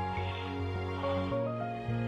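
Instrumental background music: held notes over a bass that steps to a new note every half second or so.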